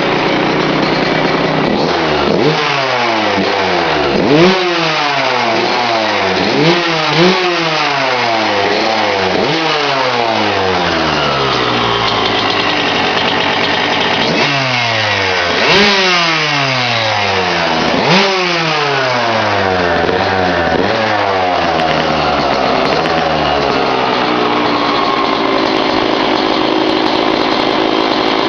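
2003 Suzuki RM125's single-cylinder two-stroke engine, with a freshly rebuilt top end, revved in a series of sharp throttle blips. Each rev snaps up and falls back, and the engine settles to a steady idle near the end. The owner says it is running kind of rich.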